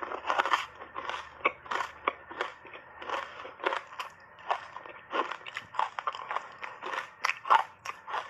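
Close-up crunching of ice coated in matcha powder being chewed: an irregular run of sharp cracks and crackles, several a second.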